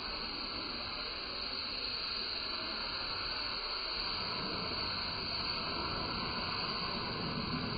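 Steady hiss of a pressure washer's high-pressure water jet spraying onto a surface.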